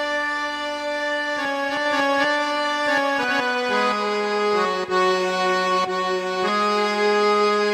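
Slow instrumental background music led by an accordion-like reed instrument playing long held notes, the melody stepping down in pitch about four seconds in.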